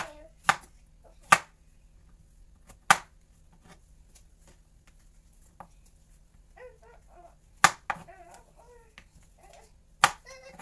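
Kitchen knife chopping through a peeled opo (bottle gourd) onto a wooden chopping board: sharp single chops at uneven gaps, about six in all, with a long pause in the middle.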